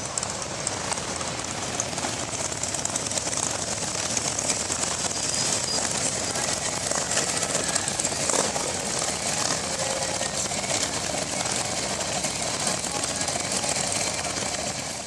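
Many motorcycles, largely Harley-Davidson touring bikes, riding past at low speed in a long procession, their engines running together as a dense, continuous noise.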